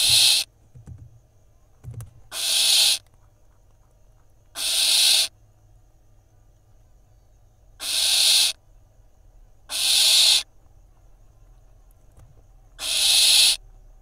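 Barn owl nestlings giving rasping, hiss-like screech calls: six calls, each under a second long, repeating every two to three seconds.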